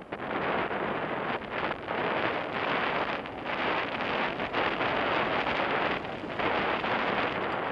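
Wind buffeting the microphone of a camera riding on a mountain bike moving quickly down a dirt singletrack: a loud, rushing noise that wavers and dips briefly a few times.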